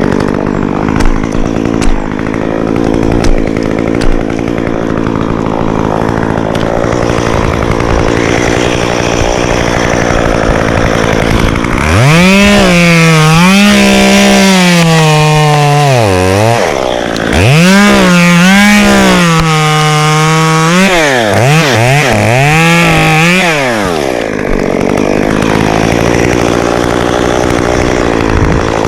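Stihl two-stroke chainsaw running steadily at low speed, then opened up to high speed in two long stretches about twelve and eighteen seconds in, its pitch wavering under load. A few quick revs follow before it settles back to low speed near the end.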